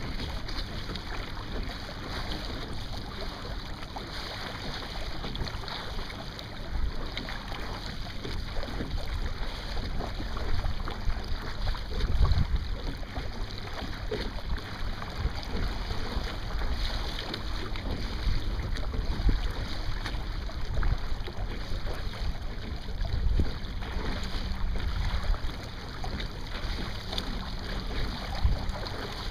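Lake water rushing and splashing along the hull of a Sunfish sailboat under sail, with wind gusting on the microphone in an uneven low rumble.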